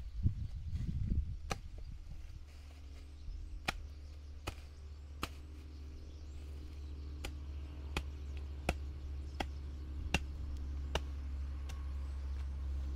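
Sharp chopping strokes of a hand tool cutting into weeds and soil while clearing a field, falling at about one every three-quarters of a second, over a low steady hum that grows louder toward the end.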